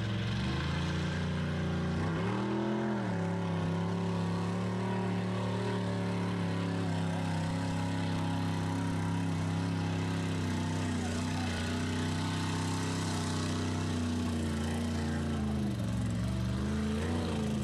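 Lifted mud truck's engine running hard at steady high revs while ploughing through deep mud and water, the revs rising briefly about two seconds in and dipping then climbing again near the end.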